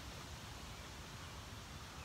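Faint, steady outdoor background hiss with a low rumble, with no distinct events.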